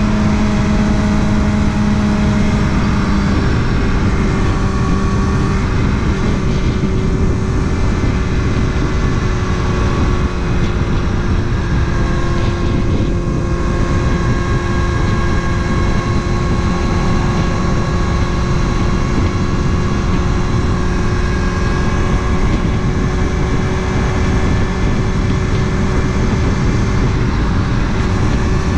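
Kawasaki ZX-6R's inline-four engine running at a nearly constant pitch during a steady ride, over a dense rushing noise of wind on the microphone.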